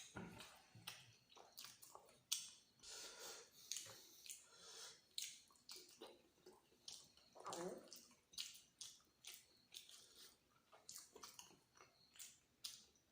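Close-up chewing of soft food, with frequent wet lip smacks and mouth clicks in an irregular run. About seven and a half seconds in there is a brief gliding throat sound, like a swallow.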